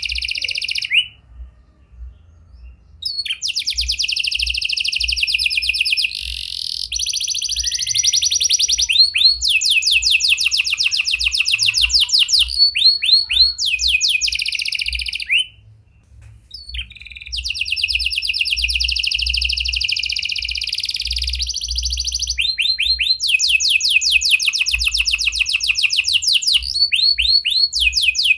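Domestic red canary singing: long phrases of rapid, evenly repeated high notes, one trill after another, broken by a pause about a second in and another about midway. The song is the kind filled with prenjak (prinia) and lovebird phrases.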